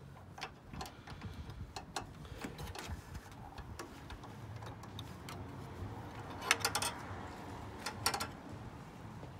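Light metal ticks and clicks of a steel combination wrench worked on the serpentine belt tensioner bolt, with sharper clinks of tool metal about six and a half and eight seconds in.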